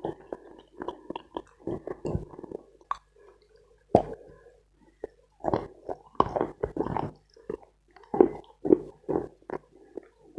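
Close-miked chewing of dense dry Khrapovsky chalk: irregular sharp crunches with soft wet mouth sounds between them. The loudest crunches come about four seconds in and again in the second half.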